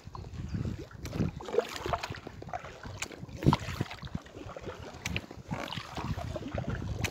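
Kayak paddling: the blades dip and splash in the river in irregular strokes, with a few sharp clicks and a steady low rumble under the water noise.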